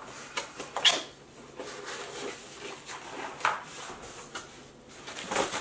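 Rustling and handling noises of packaging being moved about: plastic wrap and cardboard, with a few short sharper knocks, the strongest about a second in and about three and a half seconds in.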